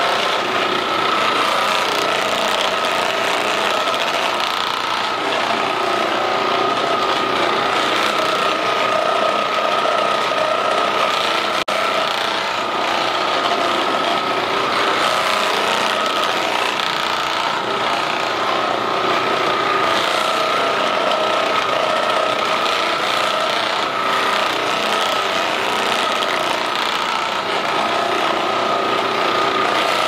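Percussive massage gun running steadily, its motor holding one even whine.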